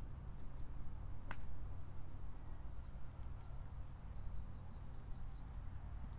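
Outdoor ambience: a steady low rumble, a single short chirp about a second in, and a rapid high trill in the second half.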